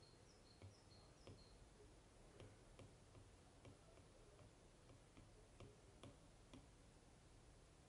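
Near silence with faint, irregularly spaced ticks: an Apple Pencil's tip tapping on an iPad Pro's glass screen while painting.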